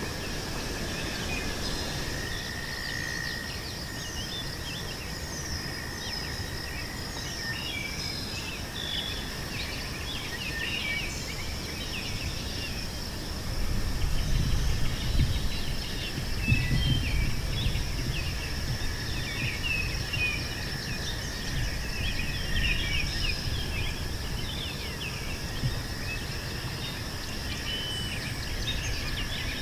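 Meadow ambience: a steady high insect drone under many short bird chirps and twitters. A low rumble rises for a few seconds about halfway through and is the loudest part.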